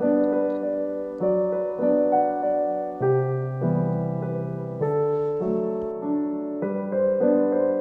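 Background piano music: slow, gentle chords, each struck and left to fade, a new one about every second.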